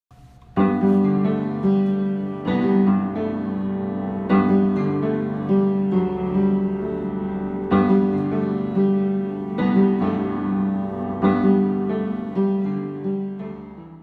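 Background piano music, with a new chord struck every second or two. It starts about half a second in and fades out near the end.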